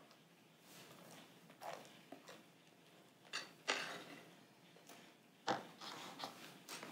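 Spatula scraping thick strawberry ice cream mixture out of a glass bowl into plastic tubs: faint, irregular scrapes and soft squelches, the loudest a few seconds in.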